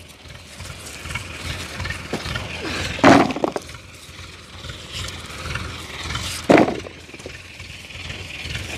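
Hand-picked potatoes dropped into a bucket, landing with two loud, short knocks about three and a half seconds apart.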